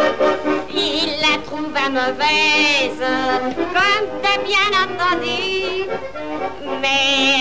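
A high voice singing with a wide vibrato over instrumental accompaniment, a song from an old film soundtrack.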